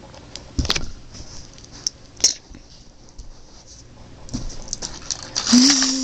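Handling noise from a toy action figure on carpet: a thump, a couple of sharp clicks and a softer knock. Near the end comes a breathy vocal sound with a held low hum.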